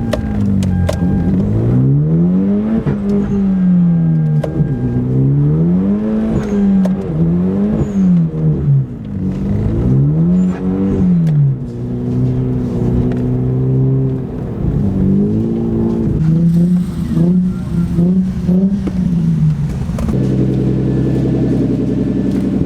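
Car engine revving up and down again and again, each rise and fall lasting a second or two, then quicker short blips, settling to a steady run near the end.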